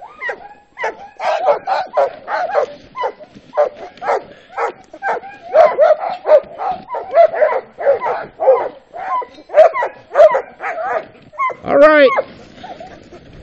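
A team of harnessed sled dogs barking and yelping rapidly, several voices over one another, with one long high yowl near the end; the eager noise of sled dogs held at a stop and wanting to run. Just after the yowl the barking stops and a steady hiss of the sled runners on snow takes over as the team sets off.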